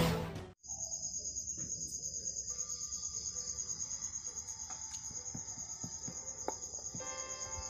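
Intro music cuts off about half a second in, leaving a cricket trilling steadily in a high, fast-pulsing chirp. Faint soft music notes come in underneath after a couple of seconds.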